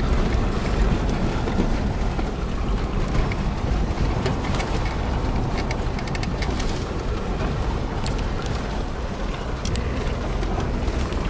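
An off-road vehicle driving over a rough dirt trail, heard from inside the cab: a steady low engine and tyre rumble with frequent small rattles and knocks from the bumpy ground.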